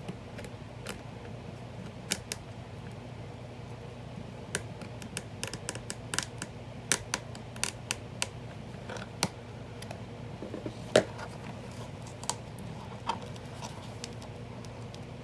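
Irregular small sharp clicks and snips of an old book's binding strings being cut and its pages handled, the loudest a little past the middle, over a faint steady low hum.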